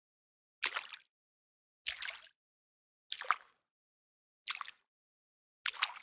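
Five short water splashes, one about every 1.2 seconds, each starting sharply and dying away within half a second.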